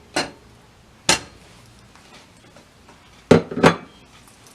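Cookware clattering on a stove: four short knocks of a pan and utensil, one just after the start, one about a second in and two close together near the end, as butter goes into the pan to melt.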